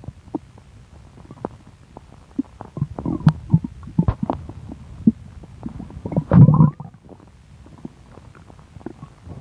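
A bloated human stomach gurgling: irregular small pops and squelches, with one louder, longer rumble about six seconds in.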